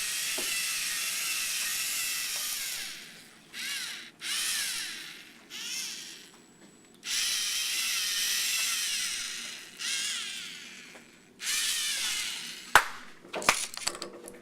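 A small robot's electric gear motors whining as it drives, in several runs of one to three seconds with the pitch wavering, stopping and starting again. Near the end there is a sharp knock and a few lighter clicks.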